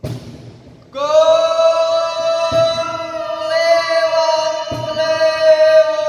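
Voices singing one long held note that starts about a second in and stays steady, with a lower note joining partway through. A knock comes at the very start and two soft thumps fall under the singing.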